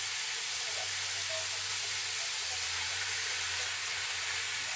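Sukiyaki frying in the pan: a steady sizzling hiss, with a low steady hum beneath it.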